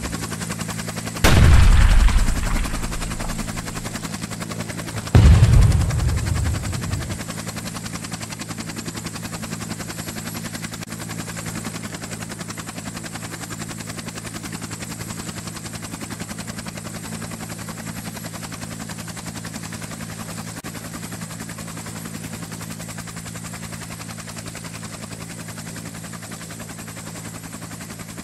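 Two loud booms about four seconds apart, each dying away over a couple of seconds. Under them runs a steady low mechanical drone with a fast flutter.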